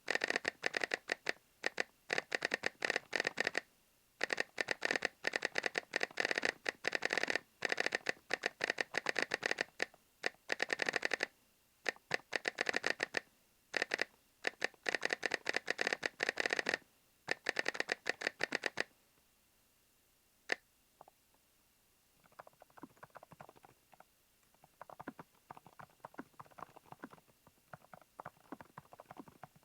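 Typing on a Smurve80 keyboard: fast runs of key clicks in bursts with short gaps for about the first nineteen seconds, then a pause broken by one single click. From about twenty-two seconds on the typing comes back quieter and sparser.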